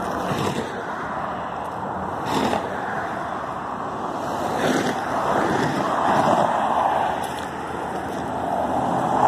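Steady road traffic on a busy highway, swelling as vehicles pass about six seconds in and again near the end, with a few faint knocks.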